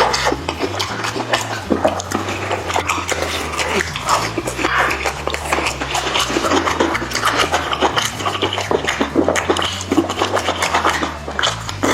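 Close-miked chewing, smacking and slurping, dense and continuous, as spicy chicken and chicken feet are eaten.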